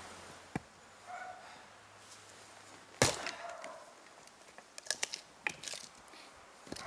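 A steel splitting maul strikes an oak round once, hard, about three seconds in, splitting it with a sharp crack. A few lighter wooden knocks and clatters follow as the split pieces are worked apart.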